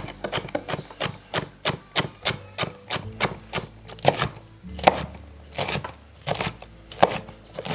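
Chef's knife chopping vegetables on a wooden cutting board: a steady run of knocks about three a second, then from about four seconds in slower, uneven chops, some in quick pairs.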